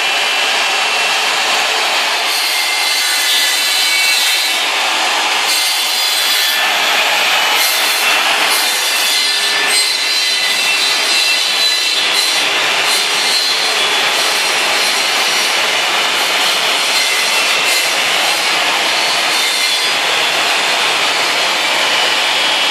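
Homemade wood lathe running steadily and cutting into a wooden workpiece, a continuous scraping, rasping sound of wood being machined.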